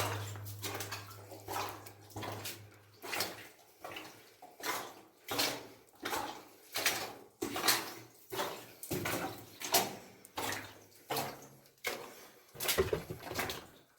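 Footsteps wading and splashing through shallow water in a mine passage, one step about every 0.7 seconds, with a low hum for the first few seconds.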